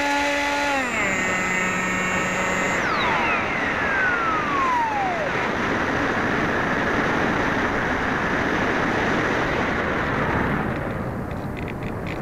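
HobbyKing Bixler RC plane's electric motor and propeller whining, dropping in pitch about a second in. About three seconds in the power is cut: the whine falls away steeply as the propeller winds down. A steady rush of wind on the onboard microphone follows as the plane glides.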